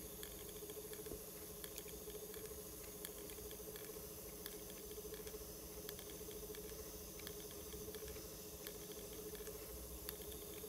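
Grundig CB 100/E cassette tape drive running with an opened cassette: a faint steady motor tone under hiss, with light irregular ticking from the transport.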